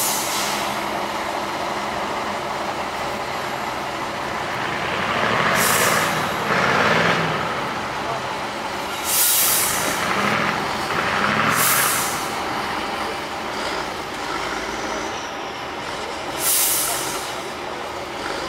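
Tatra 813 8x8 trial truck's diesel engine running and revving as it works through mud, with short sharp hisses of compressed air from its air brakes several times.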